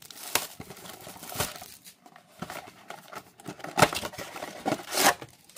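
Cardboard Upper Deck Marvel Platinum blaster box being torn open by hand: irregular rustling and tearing of the paperboard, with a few sharper rips about four and five seconds in.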